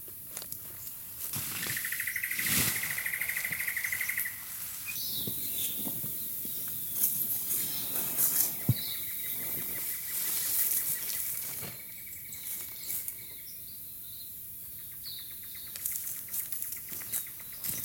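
Nylon tent fabric and poles rustling, flapping and clicking as a dome tent is pitched, with birds chirping. A rapid high trill sounds near the start and again midway.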